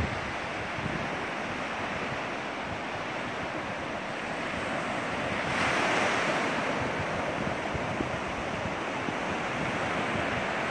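Ocean surf washing onto a sandy beach, with wind buffeting the microphone; a wave swells louder about halfway through, then eases.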